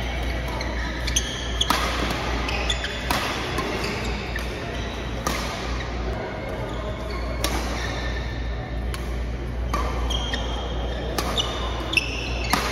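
Badminton rally in a large indoor hall: sharp racket-on-shuttlecock hits every second or two, with short high squeaks of shoes on the court mat between them and a steady low hum underneath.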